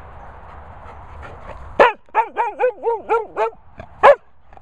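Sprocker spaniel barking: a loud sharp bark about two seconds in, then a quick run of short high yelping barks, about five a second, then another loud bark near the end.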